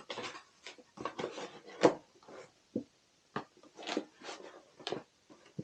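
Irregular clicks, knocks and short scrapes of computer hardware being handled, as a stuck component is tugged and worked loose from a PC case.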